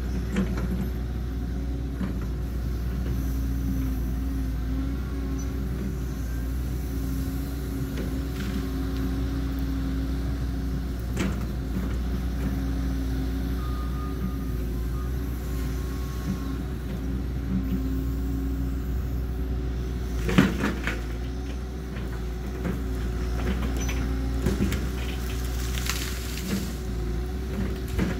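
Cat 314 excavator's diesel engine running steadily while the machine works, with sharp cracks and knocks from the bucket clearing brush and trees, the loudest about twenty seconds in and a few more near the end.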